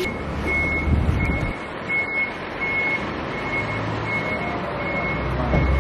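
A vehicle's reversing alarm beeping steadily, one high tone a little more than once a second, over a truck engine running.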